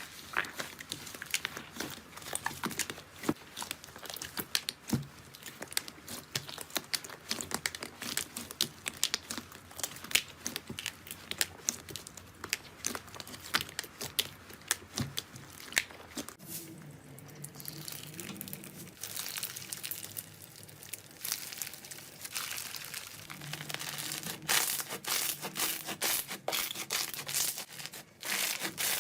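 Slime being squeezed and stretched by hand, with a dense run of small crackling, popping clicks. Around the middle it turns softer for several seconds, then the crackling picks up again.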